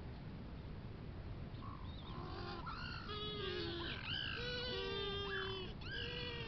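Little blue penguin chicks calling, a run of overlapping high, pitched calls with rising and falling notes that starts about two seconds in, over a steady low hiss.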